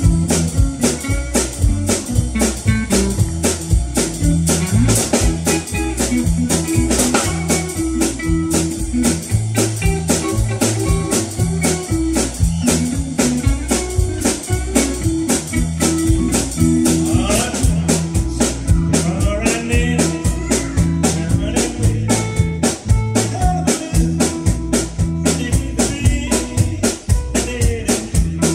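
Rockabilly trio playing live: an upright double bass walks a bass line under a drum kit's steady beat, with an electric guitar playing lead lines on top.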